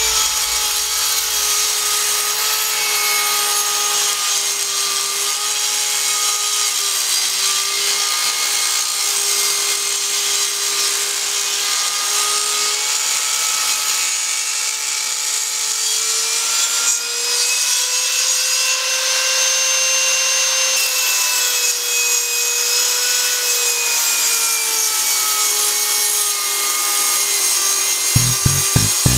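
Electric woodworking power tool running with a steady whine that sags and rises slightly in pitch as it cuts wood, over a dense hiss of cutting. A few sharp knocks come near the end.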